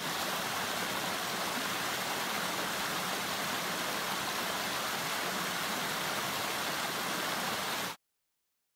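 Small rocky mountain stream rushing and splashing over stones and little cascades, a steady hiss of running water. It cuts off suddenly near the end.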